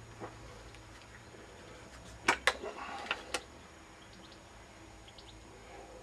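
Cometa Fenix 400 break-barrel spring-piston air rifle firing: two sharp cracks about a fifth of a second apart, then two fainter clicks within the next second.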